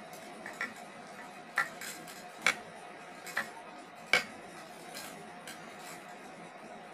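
Sharp clicks and knocks of a ring light's parts being fitted onto its tripod stand, about six separate taps, the loudest two about two and a half and four seconds in.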